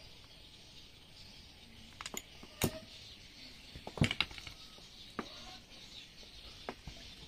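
A few scattered sharp clicks and clinks of small metal parts and hand tools being picked up and handled, two of them louder, at about two and a half and four seconds in, over a faint steady high hiss in the background.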